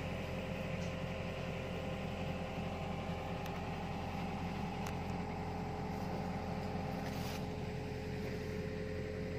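Hitachi hydraulic excavator's diesel engine running steadily at idle, an even hum with a constant tone over it.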